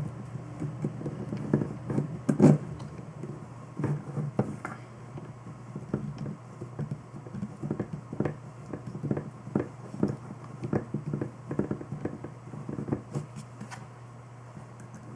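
Irregular small clicks and taps of screws being fitted and tightened in the tubing clamps on a liquid-cooler pump block, a few light knocks a second with pauses.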